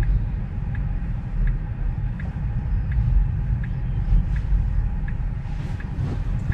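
Low, steady rumble inside a Tesla's cabin, with a light, regular tick about every three-quarters of a second from the turn-signal indicator.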